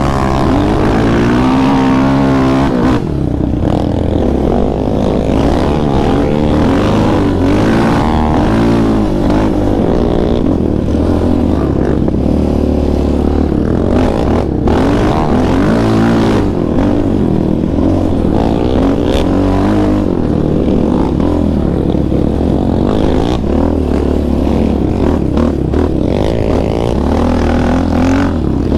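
Yamaha Raptor 700R's single-cylinder four-stroke engine with an aftermarket Monster exhaust, heard from the rider's seat while riding trails; the engine pitch keeps rising and falling as the throttle is worked and the gears change.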